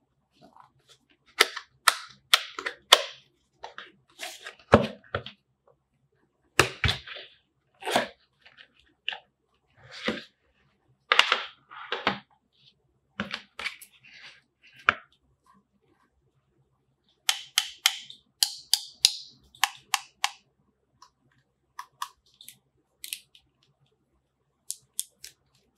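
Unboxing sounds: crisp clicks, snaps and scrapes as the charger's white box is opened, its lid lifted off and the Samsung travel adapter taken out of its moulded tray. The clicks come in quick clusters, with a few lone ticks and short pauses between them.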